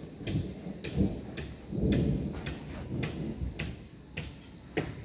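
Hammering from construction work: sharp metallic strikes about twice a second, slightly uneven in spacing, with faint voices behind them.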